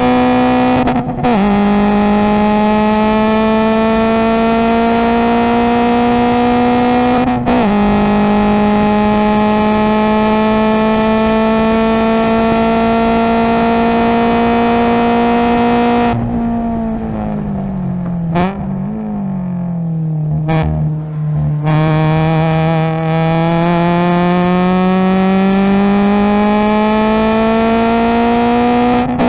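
Subaru BRZ race car's 2.0-litre flat-four, with aftermarket header and cat-back exhaust, heard from inside the cabin at full throttle. Its pitch climbs steadily, broken by two quick upshifts from third up to fifth about one and seven seconds in. Around sixteen seconds it lifts for braking, the pitch falling with two brief revs on the downshifts, then it pulls hard again in third with the pitch climbing.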